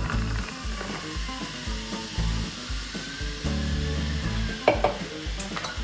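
Carbonated soda fizzing and crackling over ice cubes in a glass just after pouring, with a couple of sharp clicks near the end. Soft background music plays under it.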